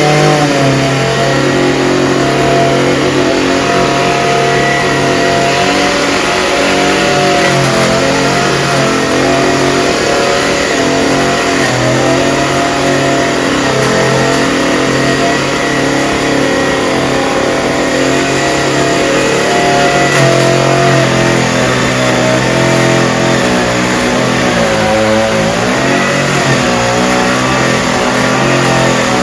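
Engine of a disinfection spraying machine running loudly and steadily, its pitch wavering slightly, with a brief wobble and dip about 25 seconds in.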